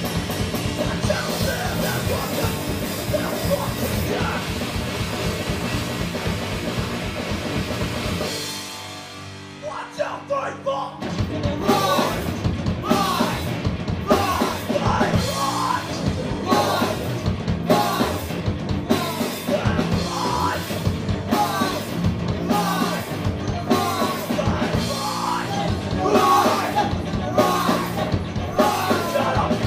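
Live hardcore punk band playing: distorted electric guitars, bass, drum kit and vocals. About nine seconds in, the drums and cymbals drop out for a couple of seconds while the guitars hold, then the full band crashes back in.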